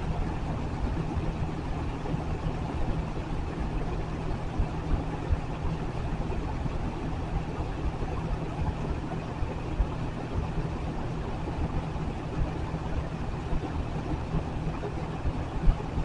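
Lakewood adjustable box fan running steadily: an even rush of air from the blades over a low, constant motor hum.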